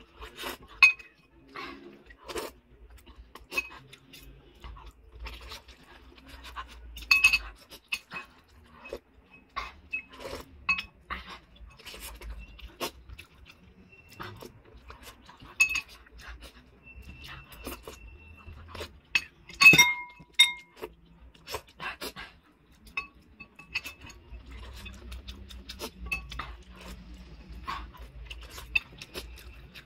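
Metal spoon and fork clinking and tapping against a ceramic bowl in irregular, ringing clinks, the loudest cluster about two-thirds of the way through. Quieter mouth sounds of eating noodle soup and boiled eggs come between the clinks.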